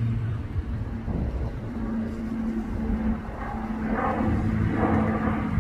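Twin-turboprop airliner passing overhead: a steady propeller drone over a low rumble.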